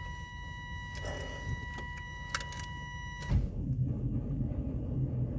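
A steady electronic warning tone sounds with a few small clicks. About three seconds in, it cuts off as the 1993 GMC Yukon's 350 throttle-body-injection V8 cranks and catches quickly on a cold start after sitting almost six months, then runs with an uneven low rumble.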